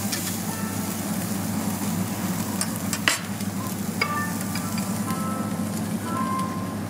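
Beef sizzling on a yakiniku table grill's wire mesh over charcoal, with metal tongs clicking against the grill twice, about three and four seconds in.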